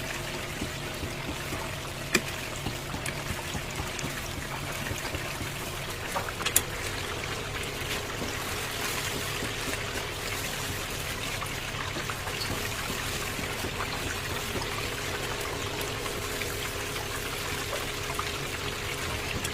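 Chicken deep-frying in hot oil: a steady crackling sizzle, with a few sharper pops in the first several seconds.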